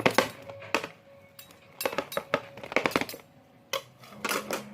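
A run of sharp clinks and knocks, some in quick clusters and some spaced out, like small hard objects being handled.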